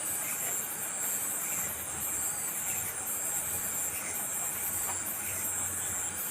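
Steady high-pitched insect chirring that swells about once a second, with faint short chirps beneath it repeating at a similar pace.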